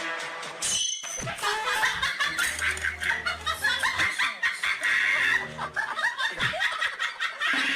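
Person laughing hard: a rapid run of short, breathy laugh bursts that starts about a second in and keeps going until near the end.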